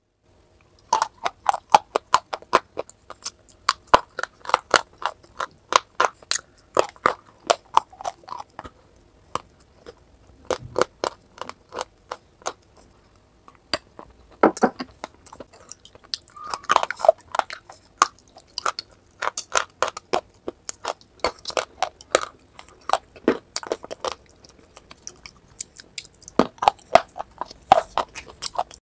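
Close-miked crunching and chewing of dry edible clay pieces dipped in a creamy clay paste. Crisp crunches come in quick runs, with a few short pauses between bites.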